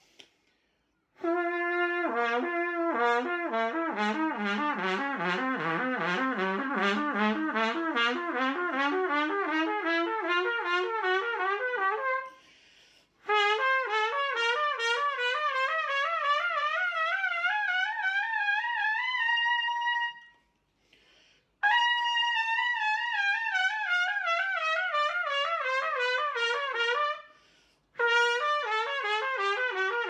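Solo trumpet playing a fast interval exercise: notes flicker rapidly back and forth while the whole pattern drifts slowly down or up. There are four long phrases, with short pauses for breath between them.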